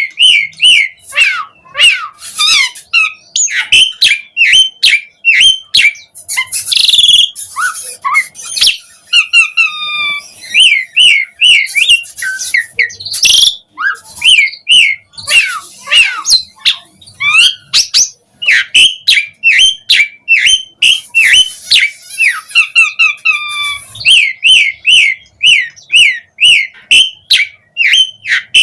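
Asian pied starling (jalak suren) singing a long, fast, varied song: quick runs of repeated whistled notes and pitch sweeps, broken by clicks and a few harsh, rasping bursts.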